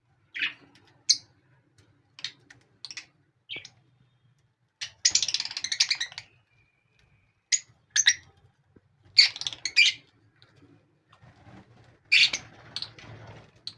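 Pet lovebirds chirping: short, sharp, high-pitched calls scattered throughout. Longer bursts of rapid chattering come about five seconds in, around nine seconds and near the end.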